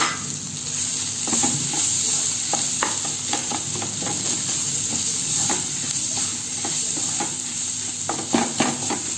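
Onions and boiled potatoes frying in oil in a pan, sizzling steadily, while a spatula stirs them and taps and scrapes against the pan at irregular moments, with a run of louder taps near the end.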